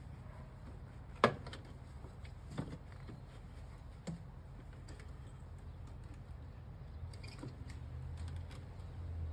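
A few sharp clicks and knocks over a low steady rumble, the loudest click about a second in.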